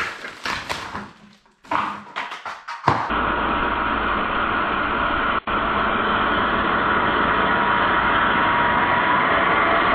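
A few knocks and clatter of wood being handled. Then, from about three seconds in, a Milwaukee circular saw runs steadily, cutting through a wooden board.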